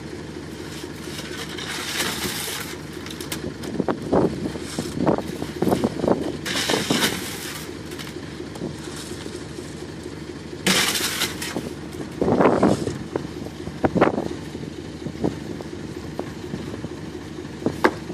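Concrete mixer truck running steadily with its drum turning, while shovels scrape and knock against wet concrete and stones in the formwork. A few short hissing rushes come through, and the knocking is busiest a few seconds in and again about two-thirds of the way through.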